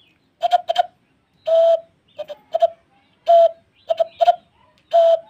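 A man imitating a bird's hooting call by blowing into his cupped hands: two quick hoots followed by one longer hoot, repeated three times, all at the same pitch.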